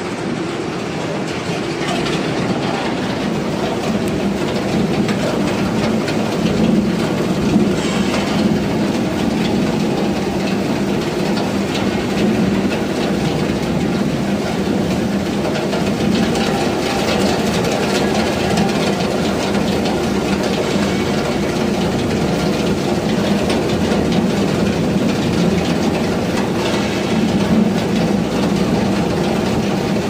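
Heavy-duty single-shaft shredder of a cable granulator line running, its toothed rotor chewing scrap optical fibre cable against the fixed comb knives. A steady, loud machine drone with dense rattling of material being cut.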